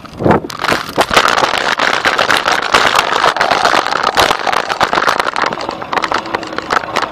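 Loud rattling and rushing noise of a bicycle ride picked up by a camera carried on the moving bike, full of sharp clicks and knocks, easing a little near the end.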